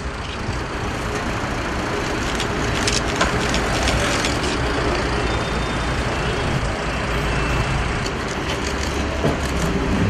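Steady traffic and vehicle engine rumble, with scattered clicks, most of them around three to four seconds in.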